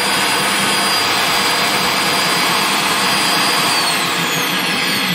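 Rotabroach Commando 40 magnetic drill's electric motor running at full speed with a steady high whine, on a test run after its broken drive spindle was replaced. About four seconds in it is switched off and winds down, the whine falling in pitch; it runs as it should.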